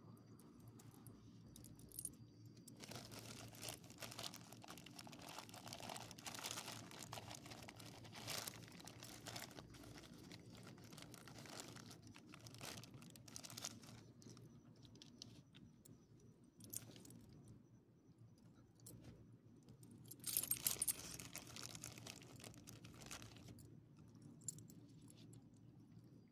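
Quiet crinkling and rustling of a plastic dog-treat pouch being handled, in two long stretches, the second louder, with the metal leash clip and tag on a small dog's collar jingling.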